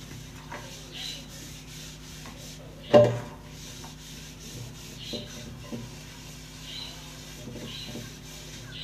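Hand scrubbing a frying pan at a stainless steel sink: short rubbing strokes about once a second. There is one loud knock about three seconds in and a few lighter knocks later.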